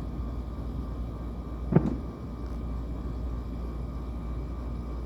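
A single distant firework shell bursting with a sharp boom that rings out briefly, about two seconds in, over a steady low rumble.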